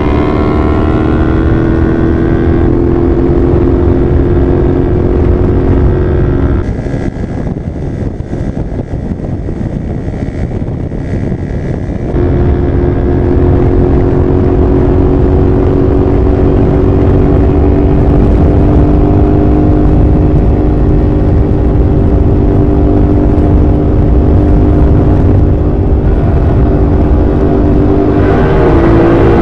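Sport motorcycle engine running at a steady cruise, its note holding an even pitch over a rush of wind and road noise. Partway through, the engine note drops away under the wind noise for about five seconds, then comes back steady, with a brief dip in pitch near the end.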